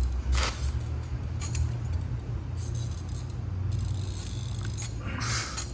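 Occasional short metallic clinks and scrapes of hand tools working on a truck's suspension bolts, over a steady low hum.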